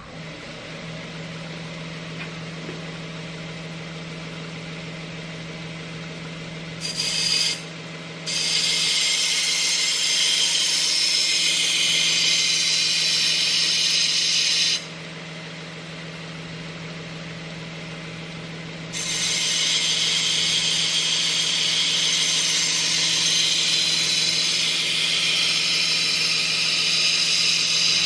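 Belt grinder running with a steady hum while a steel knife blade is pressed to the moving belt. There is a brief touch about seven seconds in, then two long grinding passes of several seconds each, with a few seconds of the grinder running alone between them.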